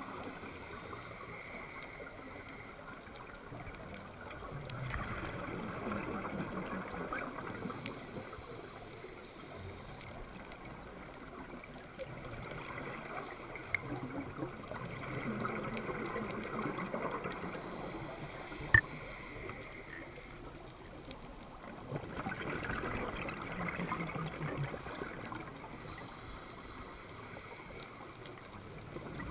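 Scuba regulator breathing heard underwater through a camera housing: exhaled bubbles gurgle in noisy bursts every several seconds. Two sharp clicks stand out in the middle.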